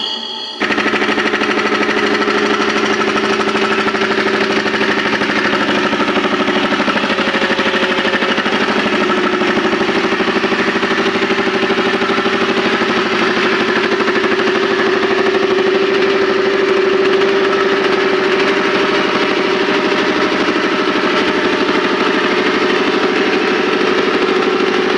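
A 10 hp reciprocating air compressor running steadily with a rapid, even chugging pulse and a steady hum. There is a brief drop just after the start before it comes back at full level.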